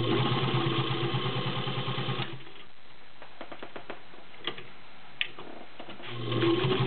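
Electro Grand Class 15 clone sewing machine with its 1 amp motor running, stitching through a couple of layers of garment leather in a fast, even rhythm. It stops after about two seconds, a few clicks follow, and it starts sewing again near the end.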